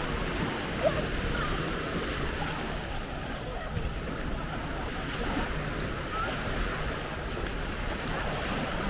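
Sea waves washing onto a beach, a steady surf, with wind rumbling on the microphone.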